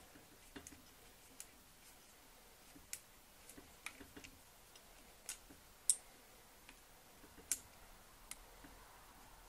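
Faint, irregular small metal clicks and taps from a screwdriver loosening a wiring-terminal screw on a Singer 201-2 sewing machine, with one sharper click about six seconds in.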